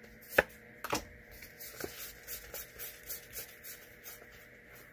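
Magic: The Gathering trading cards being handled and flipped through one by one: a run of soft clicks and rustles, with two sharper clicks in the first second.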